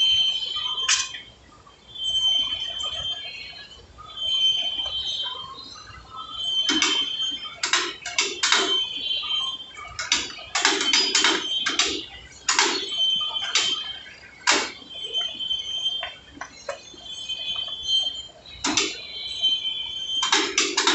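Metal clanks and clicks from hand work on a stopped heavy lathe's large chuck, with short high-pitched tones recurring every couple of seconds. The clanks come thickest in the middle and again near the end.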